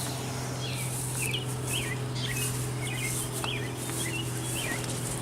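A small bird chirping repeatedly in short, quick calls that slide in pitch, over a steady low hum.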